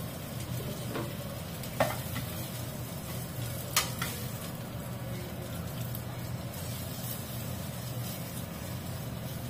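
Frying pans sizzling steadily on a gas hob, with a slice of French toast and pieces of meat cooking. Two sharp clicks, about two and four seconds in, as tongs knock against the pan.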